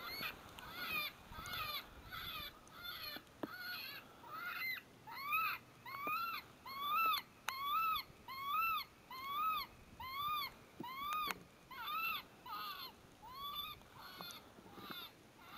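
Electronic predator caller, a Lucky Duck Revolt, playing a distress call: a steady run of high squealing notes, each rising then falling, a little under two a second.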